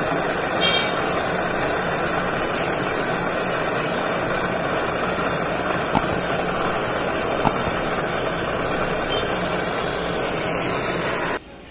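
Brazing torch flame burning steadily while a copper pipe is brazed onto a rotary air-conditioner compressor. The steady noise stops suddenly near the end.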